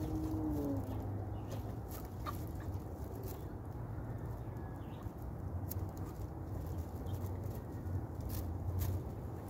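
Young guinea pigs rustling in hay and nibbling feed pellets: scattered small clicks and crackles over a steady low rumble. A short low call fades out about a second in.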